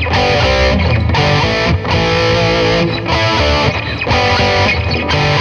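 Distorted electric guitar playing a rock riff: chords struck with repeated down-picks in a galloping rhythm of an eighth note and two sixteenths. The riff is broken by short breaks about once a second.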